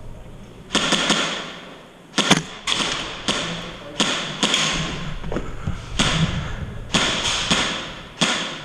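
Airsoft guns firing single shots at irregular intervals, about a dozen sharp cracks, each followed by a long echo in a large indoor hall.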